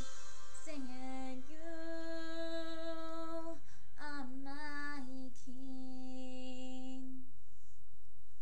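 A girl singing solo and unaccompanied, holding long notes through the last phrase of a song; her voice stops about seven seconds in.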